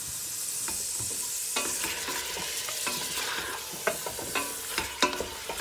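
Mutton pieces sizzling in hot oil with ginger-garlic paste in a stainless steel pot, being browned (bhuna). A wooden spatula stirs them, scraping and knocking against the pot, with the knocks coming more often from about a second and a half in.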